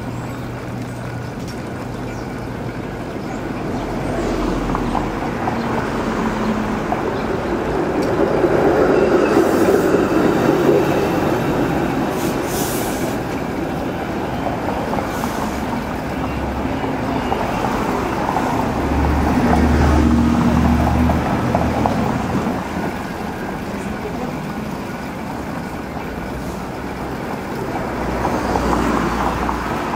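Busy city street traffic noise: a continuous rushing haze of passing vehicles that swells louder twice, about a third and about two-thirds of the way in.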